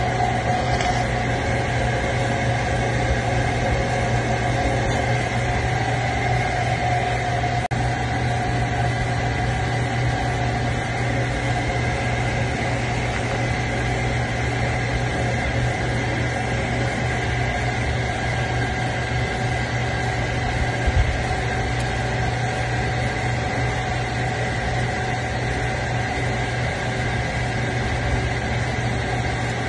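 Steady machine drone: a low hum with several constant higher tones, unchanging in pitch and level, and a faint click about eight seconds in.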